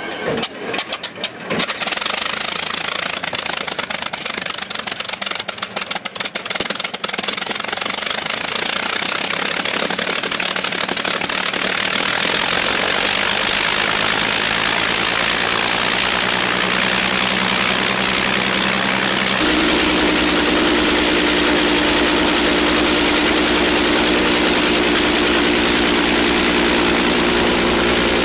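Rolls-Royce Griffon V-12 of a Fairey Firefly starting: it fires raggedly and unevenly for the first several seconds, then catches and settles into a steady idle that gradually smooths out. A little after two-thirds of the way through, the engine speed steps up to a higher, steady run.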